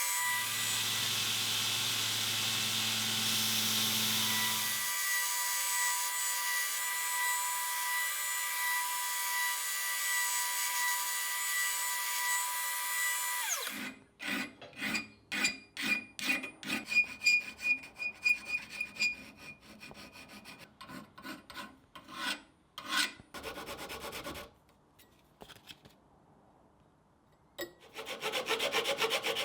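A motor-driven workshop tool runs steadily and stops abruptly about halfway through. It is followed by quick, uneven strokes of a hand file scraping steel, with pauses between runs of strokes.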